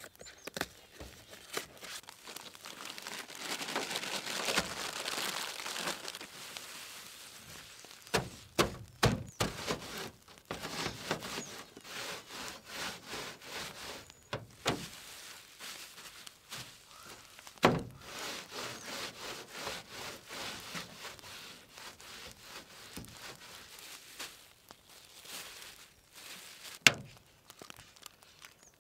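A plastic cracker sleeve crinkling as it is opened, then crackers crushed inside a plastic bag by a tin can rolled over them on a vehicle's metal hood: irregular crunches, knocks and rubbing. Near the end, one sharp crack as an egg is broken.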